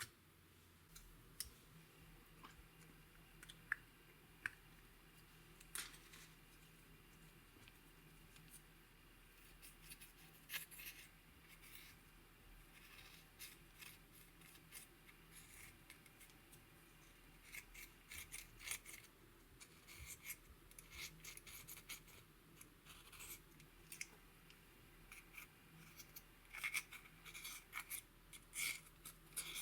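Slime being mixed and squeezed by hand: quiet scattered sticky clicks and small crackles, few at first, then coming thicker and faster in the second half.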